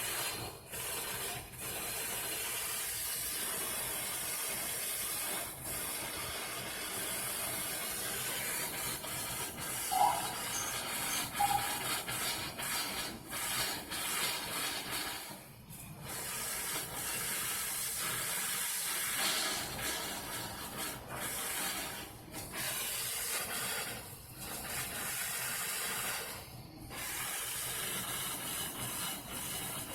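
Air and water hissing and sputtering out of the open inspector's test port at the far end of a dry-pipe sprinkler system, with a few brief dips. Air is still being pushed out of the pipes ahead of the water, which is not yet flowing solid.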